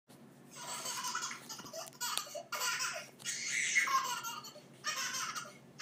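Laughter in about five high-pitched bursts with short pauses between them.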